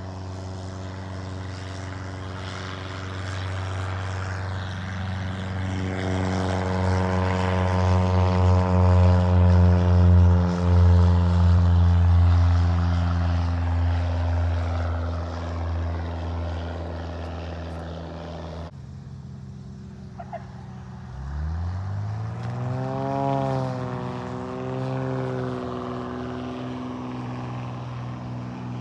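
Cessna 177B Cardinal's single piston engine and propeller at takeoff power, growing loud as the plane passes and then dropping in pitch as it climbs away. After a sudden break, a Reims-built Cessna R172K Hawk XP's engine rises in pitch as it powers up for takeoff, wavering as it lifts off.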